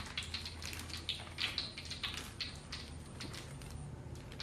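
Faint crinkling and rustling of a plastic bag as flour is poured from it into a plastic bowl: irregular soft ticks several times a second, over a low steady hum.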